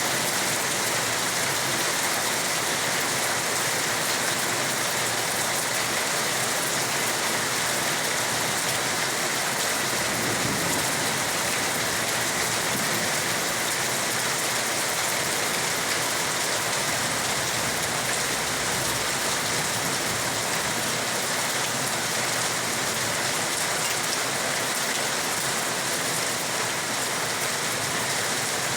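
Steady rain falling, an even unbroken hiss of drops on surfaces.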